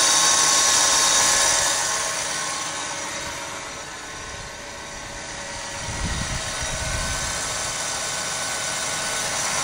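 1994 Buick Roadmaster's LT1 V8 idling with a steady high-pitched squeak, which the owner takes to come from the A/C compressor clutch pulley while the A/C is not engaged. The squeak grows fainter for a few seconds in the middle, and a low rumble comes in about six seconds in.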